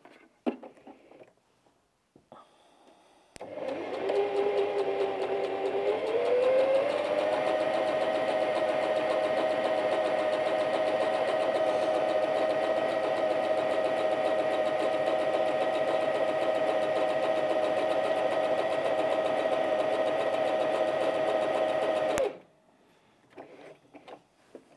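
Bernette 05 Academy mechanical sewing machine stitching a narrow lightning (stretch) stitch through jersey. After a few small handling clicks the motor starts, picks up speed and rises in pitch a few seconds later, then runs at a steady hum, and stops suddenly near the end.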